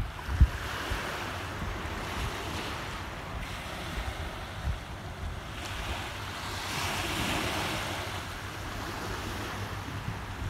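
Small waves washing and lapping against a rocky beach, a steady hiss that swells about a second in and again around seven seconds in. Wind rumbles on the phone's microphone throughout, with a sharp low thump just after the start.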